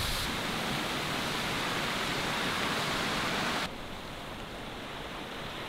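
Steady rushing of a mountain beck pouring over rocks in small cascades. About three and a half seconds in it drops abruptly to a quieter, duller rush.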